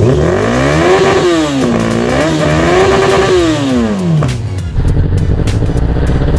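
Yamaha R1 sport motorcycle's inline-four engine revved from idle through its exhaust silencer. The pitch climbs for about a second, dips briefly, climbs again, then falls back to idle about four and a half seconds in.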